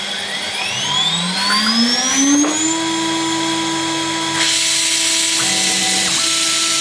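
CNC router spindle spinning up with a rising whine that levels off to a steady pitch. About four seconds in a loud hiss joins it, and fainter motor tones step in pitch twice near the end.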